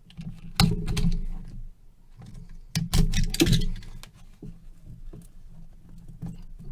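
Trading cards and their packaging being handled on a table: two short spells of rustling and clicking, then scattered light ticks over a low steady hum.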